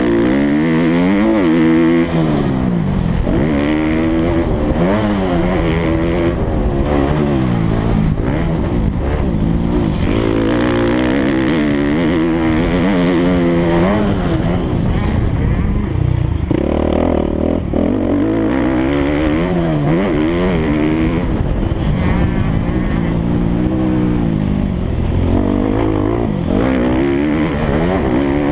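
MX2-class motocross bike's engine, heard close up from an on-board camera, revving hard and dropping back over and over as the rider accelerates, shifts and rolls off around the track.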